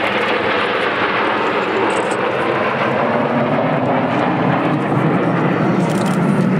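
Six Kawasaki T-4 jet trainers flying over in close formation: a steady rushing jet-engine noise from their turbofans, growing a little fuller near the end.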